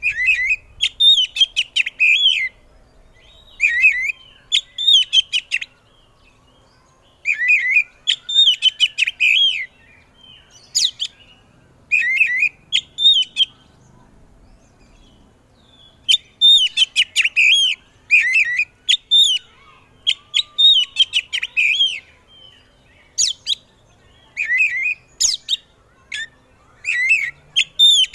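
Oriental magpie-robin singing loudly: bursts of rapid, varied whistled notes in phrases of one to several seconds, broken by short pauses.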